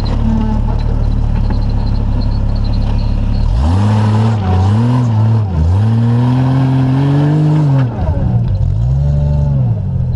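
Rock crawler buggy's engine running steadily, then from about three and a half seconds in revved in four rising and falling surges, the third held longest, as it climbs over a rock ledge under load.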